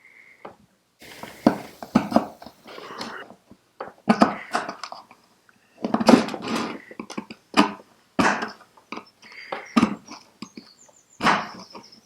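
A blade scraping and prying a hardened old gasket off a Citroën 2CV rocker cover: irregular scrapes and knocks of metal on metal and gasket, some with a faint squeak.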